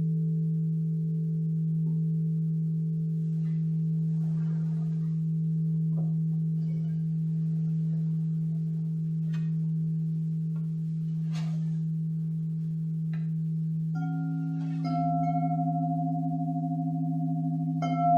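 A low singing bowl sounds a steady hum that slowly swells and fades, with faint taps and clicks over it. About fourteen seconds in a higher bowl is struck and rings on; it is struck again a second later and once more near the end.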